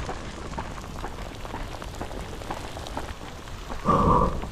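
Rain mixed with hail pattering down, a steady hiss dotted with many small sharp ticks. A brief louder noise about four seconds in.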